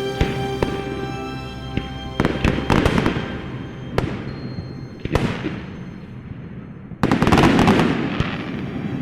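Fireworks bursting and crackling in a series of bangs a second or two apart, each fading into a crackling hiss, the loudest near the end, over background music with held notes.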